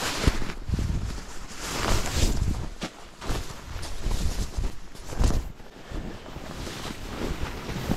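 Nylon sleeping bag rustling and swishing as it is handled and stuffed into a tent, in irregular swells with several low bumps; wind buffets the microphone.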